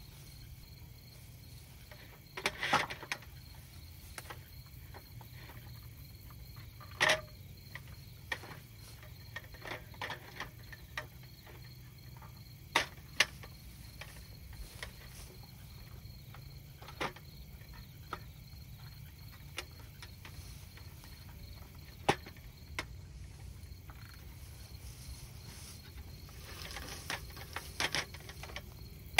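Crickets chirring steadily, with a scatter of sharp clicks and knocks from a folding camping table with a wooden-slat roll-up top and metal legs being unfolded and set up; the loudest knocks come a few seconds in, about seven seconds in, and in a cluster near the end.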